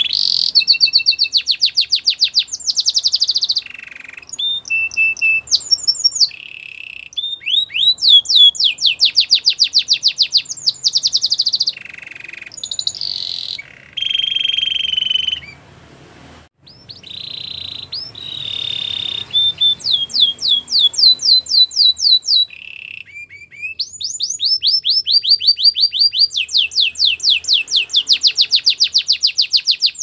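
Canary singing a long run of rapid trills, each phrase a fast string of repeated notes or rising sweeps, switching to a new phrase every one to three seconds, with a brief pause about halfway through.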